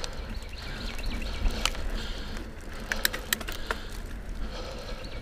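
Mountain bike rolling along a dirt singletrack: steady low wind-and-tyre rumble, with a few sharp clicks and rattles from the bike, the loudest about one and a half seconds in and around three seconds in.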